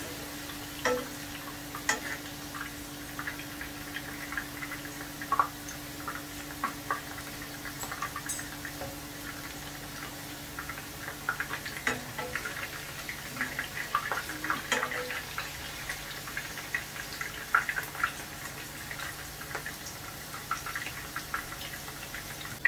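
Hot oil bubbling and crackling in a non-stick frying pan with strips of food frying, the crackle made of many small irregular pops, with light taps and scrapes of a fork and slotted spoon lifting pieces out. A steady low hum runs underneath.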